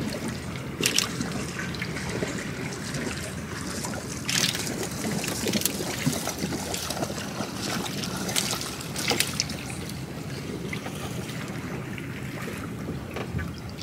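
Water trickling and sloshing around a small boat as fishing rigs are worked from it, with a few sharp splashes or knocks and a steady low drone underneath.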